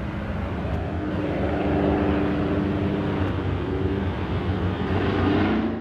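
A formation of small propeller planes flying overhead, their piston engines and propellers making a steady drone in which several engine tones at slightly different pitches overlap.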